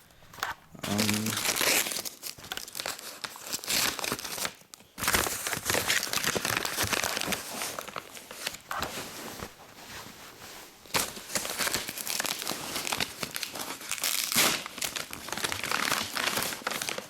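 Shipping package being torn open and its packaging crumpled and crinkled in irregular rustling bursts, with a few sharper tearing sounds.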